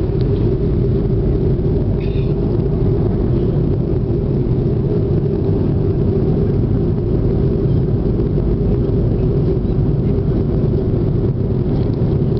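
Jet airliner cabin noise in flight: a steady low rumble that holds even throughout.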